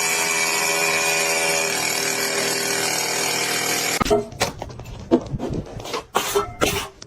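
A power tool motor running at a steady pitch for about four seconds, then cutting off suddenly. Scattered knocks and clatter follow.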